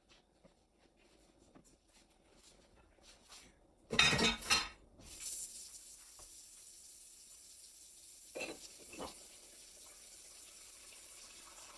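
Dishes clattering loudly in a kitchen sink, then the faucet turned on and water running steadily, with a couple of dishes knocking under the stream.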